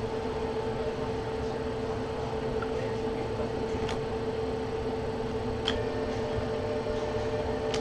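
Steady room hum with a constant mid-pitched tone, like a fan or air conditioner, with a few faint ticks as trading cards are thumbed through a stack.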